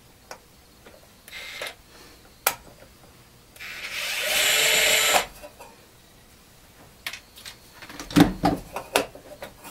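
Small handheld electric screwdriver running for about a second and a half, backing a screw out of a rack unit's front panel, with a couple of short bursts before it. Several sharp clicks and knocks of screws and parts being handled follow near the end.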